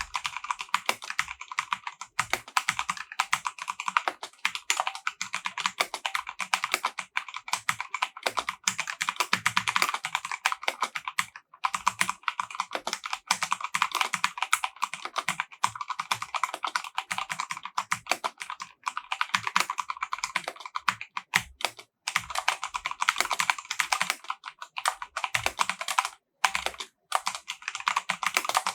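Fast, continuous typing on an EVGA Z15 mechanical gaming keyboard with silver linear switches, a dense run of key clicks broken by brief pauses about eleven, twenty-one and twenty-six seconds in.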